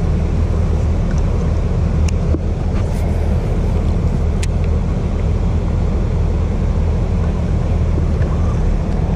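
Bass boat under way, its Mercury ProXS four-stroke outboard running steadily with wind and water rush.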